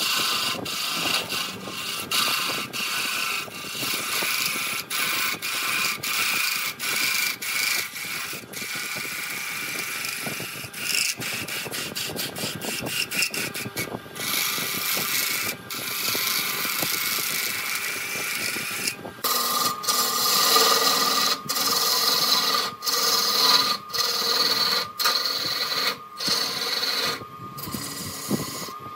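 A turning tool scraping and cutting wood spinning on a wood lathe, with a steady whine running underneath. The sound drops out briefly many times, and about 19 seconds in it turns brighter and higher in pitch.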